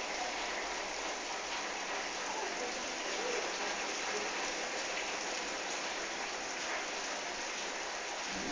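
Heavy rain falling steadily and pattering on surfaces during a strong storm.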